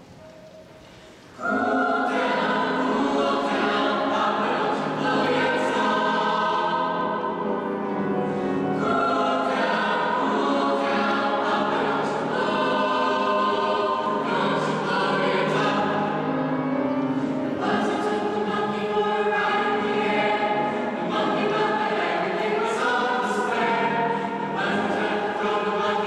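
Vocal jazz ensemble of teenage singers singing together in multi-part harmony, coming in about a second and a half in after a brief hush.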